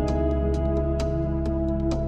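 Background music: a calm instrumental with a held chord under a run of short, quick notes.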